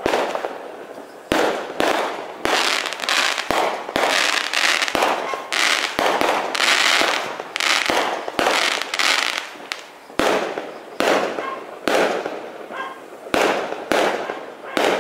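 Fireworks going off in quick succession: sharp bangs about one to two a second, with crackling between them.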